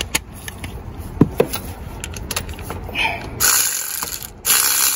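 Ratchet wrench clicking in short, irregular strokes as the last A/C compressor mounting bolt is backed out. About three and a half seconds in, a louder steady rushing noise starts, dips briefly and carries on.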